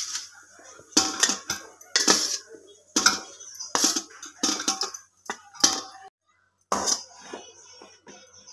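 A steel slotted spoon knocks and scrapes against a metal cooking pot and tray as cooked rice is scooped out and spread for layering. There are about ten sharp clinks over the first seven seconds, then only light scraping near the end.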